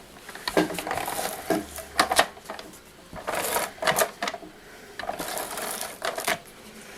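Cardstock being handled and adhesive being applied to it, a run of irregular clicks and short rasping scrapes.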